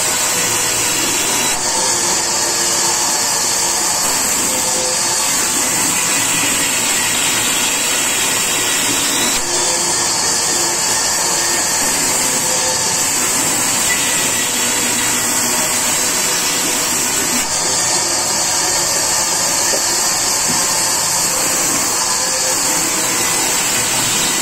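Large sawmill band saw running and ripping a timber plank lengthwise: a steady, unbroken rush of machine and cutting noise with a strong high hiss.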